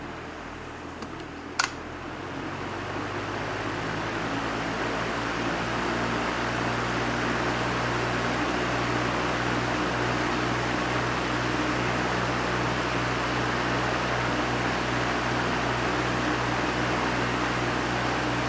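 Electric box fan running with a steady whoosh and low motor hum. A switch clicks about a second and a half in, and the fan's noise then swells over the next few seconds as it speeds up and settles at a louder, steady run.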